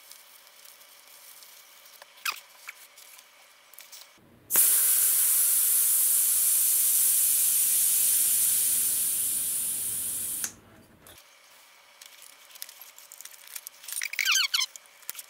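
Air hissing out of an e-scooter's front tyre valve as the valve is held open to deflate the inner tube: it starts suddenly, slowly weakens over about six seconds and then cuts off. Squeaky rubbing sounds near the end.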